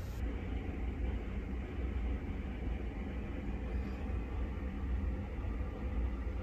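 Steady low rumble with a faint hiss: indoor room noise with no distinct event.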